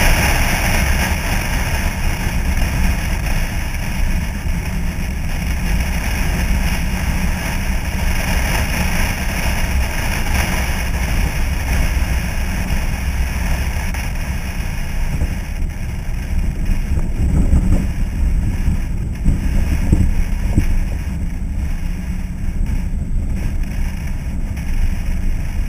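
Wind rumbling over a GoPro mounted on the outside of a moving 1964 Chevy C-10 pickup, mixed with the truck's engine running steadily at cruising speed. The higher hiss thins out about halfway through.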